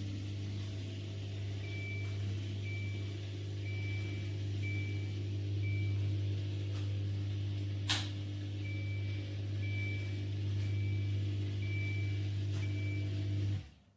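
Mini countertop dishwasher running with a steady low motor hum, while a short high beep sounds about once a second. A single click comes about two-thirds of the way in, and the machine stops suddenly just before the end.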